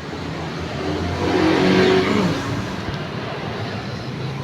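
Yamaha Mio scooter engine revved up and let back down, with a noisy CVT. The owner puts the noise down to racing roller ramps that are too extreme.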